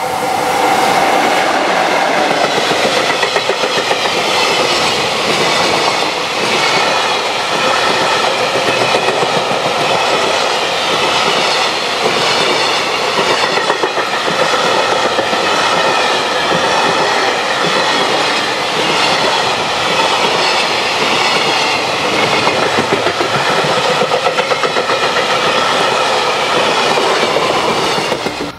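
Container freight train of flatcars behind an EF66 electric locomotive passing close by at speed: a steady loud rumble of wheels with rapid clickety-clack over the rail joints.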